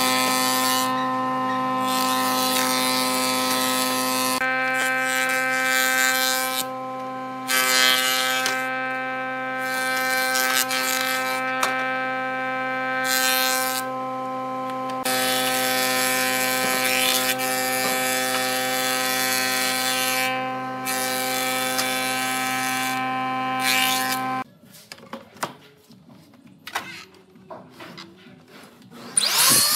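An industrial thickness planer running with a steady motor hum, and loud cutting noise that starts and stops as boards pass through the cutterhead. Near the end the planer sound cuts off, leaving a few light knocks of wood being handled.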